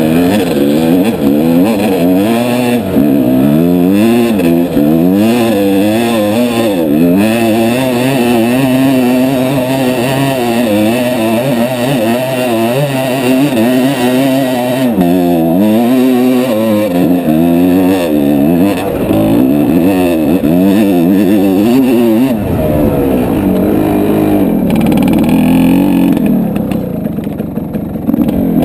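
Dirt bike engine ridden hard on a rough trail, its pitch rising and falling constantly with the throttle. About three-quarters of the way through, a rough low rumble joins it.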